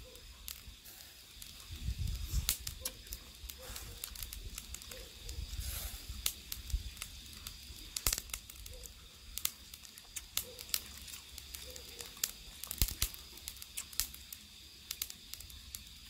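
Close-up eating sounds: chewing and small wet mouth clicks as charcoal-grilled gizzard shad is picked apart by hand and eaten, with scattered sharp crackles.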